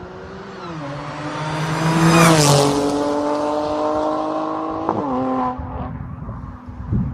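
A car engine at speed, swelling to its loudest about two seconds in and then fading. Its note holds steady between three drops in pitch, about a second in, at about two seconds and at about five seconds.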